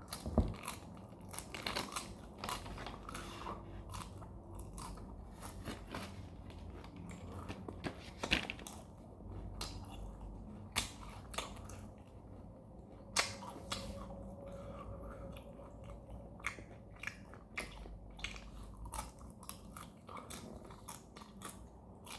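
Dried fish snack being bitten and chewed close to the microphone: irregular, crisp crunches and crackles, with a few louder bites.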